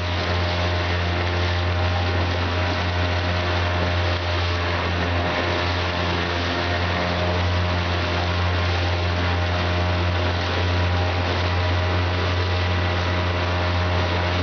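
Outboard motor running at a steady, unchanging speed as it drives a loaded canoe along, with a constant low hum and water rushing and splashing along the hull.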